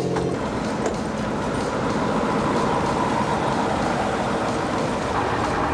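Heavy machinery of a multi-axle hydraulic heavy-haul trailer rig running steadily. A steady engine hum gives way just after the start to a broader, even rushing machine noise.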